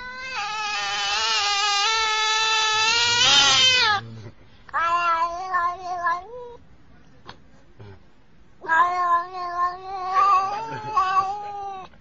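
Domestic cat yowling in long, drawn-out, wavering meows that sound like a human talking. There are three calls: one of about four seconds at the start, a shorter one about five seconds in, and a long one from about nine seconds until near the end.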